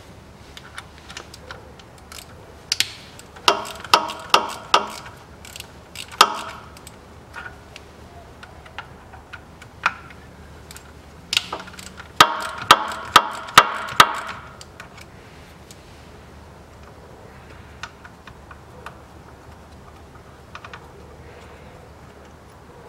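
Ratchet wrench with a 4 mm hex bit clicking in two bursts of about five sharp metallic clicks each, one about 4 seconds in and one about 12 seconds in, with lighter ticks between, as the bolts of the Haldex coupling's feed pump are undone.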